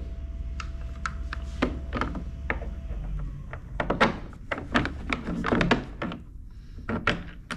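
Irregular clicks, knocks and thunks of hardware and tools being handled as a personal watercraft's boarding ladder is taken off, with a low hum that stops about three seconds in.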